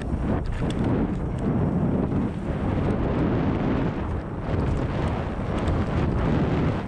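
Mountain bike riding fast down a dirt trail: wind buffeting the camera microphone over the rumble of the tyres on dirt, with a few light rattles from the bike.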